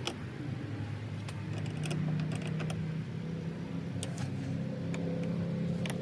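Hand screwdriver tightening the screws of an RV door latch and striker plate, giving scattered light clicks, over a steady low engine hum.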